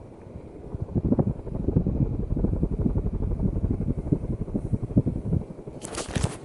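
Coolfan Huracan ceiling fan running fast, making a rapid low fluttering rumble from about a second in until about five and a half seconds. A short burst of noise follows near the end.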